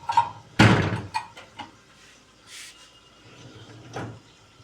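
Dishwasher's upper rack being pulled out on its rails and lifted off, with a heavy clunk about half a second in, a few light clicks and rattles, and another knock near the end.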